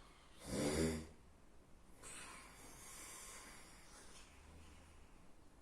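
A sleeping person snoring: one loud, low, buzzing snore a little under a second long about half a second in, then a softer breathy hiss of breath from about two seconds in that fades out.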